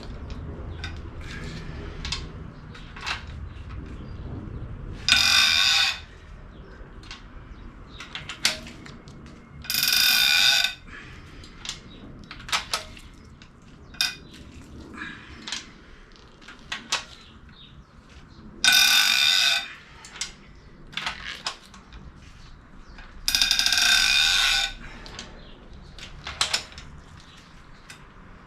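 Workshop sounds from taking an engine apart: light clicks and knocks of tools and metal parts, broken by four loud bursts of about a second each, spaced a few seconds apart.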